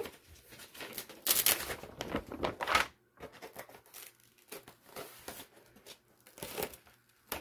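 A large stiff sheet of paper rustling and crinkling as it is handled and laid down, in several bursts in the first three seconds, then a few fainter rustles.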